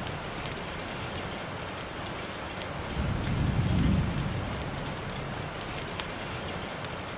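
Steady rain falling, with sharp drop ticks over an even hiss. A soft low rumble swells and fades about three to four seconds in.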